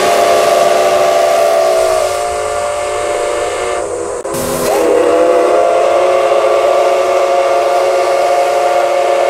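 Steam locomotive's chime whistle blowing two long blasts over a hiss of steam. The first sags in pitch and breaks off about four seconds in. The second starts with a short upward slide and holds steady.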